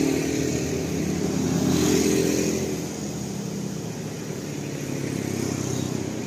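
Vehicle engine running, louder in the first three seconds with a swell about two seconds in, then easing off to a steadier, quieter run.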